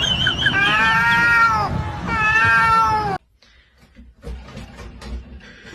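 A cat meowing in long, drawn-out, wavering calls, about three of them, loud, then cut off suddenly a little after three seconds in, leaving only faint low background noise.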